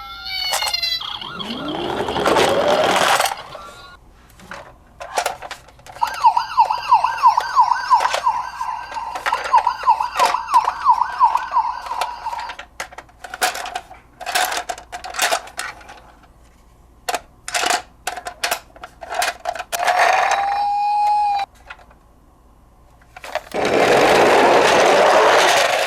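Electronic sirens of toy emergency-vehicle minicars. A wail fades out at the start, and a fast warbling yelp repeats for about six seconds in the middle. Between them come clicks and knocks from the toys, a short rising tone, and two loud bursts of hiss.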